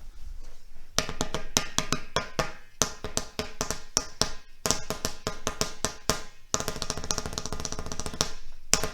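Spoons drumming on an inflated exercise ball, a rhythmic pattern of ringing taps that starts about a second in. It breaks into a quick run of strikes near the end.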